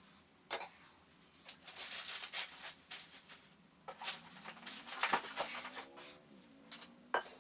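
Scattered light knocks, rustles and scrapes of drill press parts and packaging being handled during unboxing, with a short squeaky scrape about five to six and a half seconds in.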